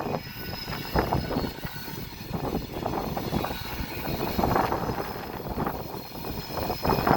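A train passing close by, its wheels clattering irregularly over the rails in a continuous rumble.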